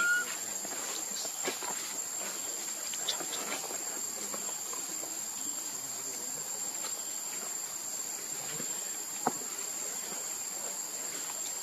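Steady high-pitched insect drone from insects chirring in the vegetation, with faint scattered ticks and one sharper tick about nine seconds in.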